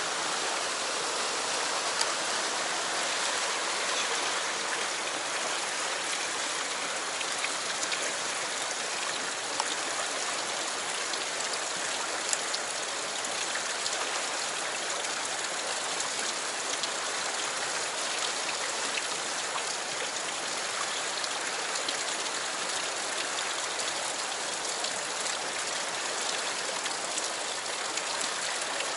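Fast stream rushing through a narrow rocky channel in white-water rapids: a steady, even hiss of running water, with a couple of brief sharp ticks.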